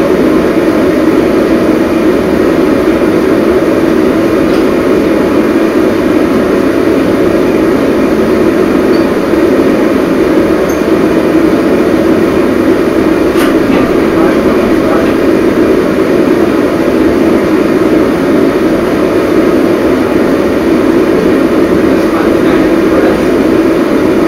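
Steady, loud drone of a running vehicle, unchanging throughout.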